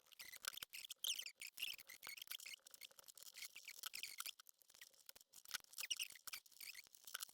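Faint, scattered small clicks and taps of handling work as cable is fed through a pendant light's ceiling fitting into a connector block.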